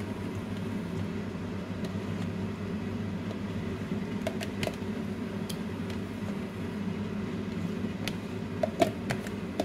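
Steady mechanical hum, like a kitchen fan or appliance running, with a few light clicks and taps as a yogurt tub is handled over a bowl.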